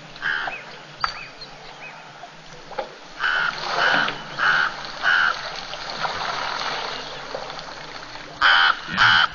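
A bird calling repeatedly with harsh, caw-like calls: a few small chirps at first, a run of four calls about half a second apart in the middle, and two louder calls near the end.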